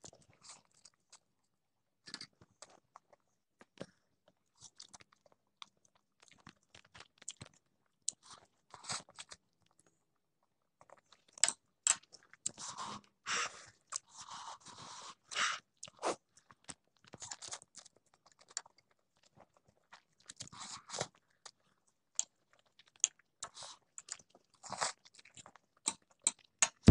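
Close mouth sounds of a person eating instant noodles: wet chewing and smacking, with the odd slurp of noodles, in short scattered bursts. The sounds grow busier and louder from about eleven seconds in.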